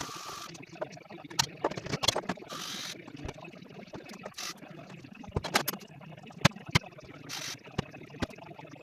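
Jigsaw puzzle pieces being handled on a table: irregular clicks and taps of pieces set down, with short rustling scrapes every few seconds.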